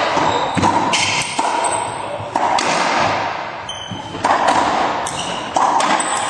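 Racquetball rally: the hollow rubber ball cracks off racquet strings and smacks the court walls again and again, every hit ringing with a long echo in the enclosed court.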